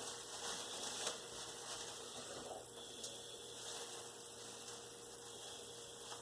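Faint steady electrical hum and hiss with a few light clicks.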